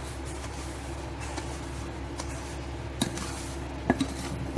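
Roasted semolina being poured from a steel plate into simmering water in a pan, over a steady low hum, with three sharp knocks of utensils against the pan in the last second and a half.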